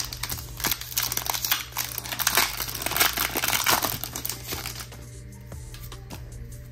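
Foil Pokémon booster pack wrapper crinkling as it is opened and handled, dying down after about four and a half seconds. Background music runs underneath.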